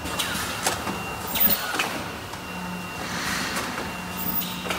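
K-cup coffee capsule filter-welding, filling and sealing machine running: a steady low hum under irregular clicks and knocks, with a few short rushing swishes from its moving parts.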